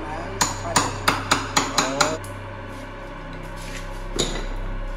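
Hammer blows chipping at the tiled concrete seal of a tomb to break it open: seven quick sharp strikes in about a second and a half, then a single strike near the end.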